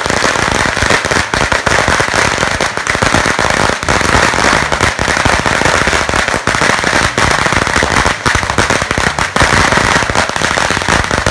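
A string of firecrackers going off in a loud, fast, unbroken rattle of bangs.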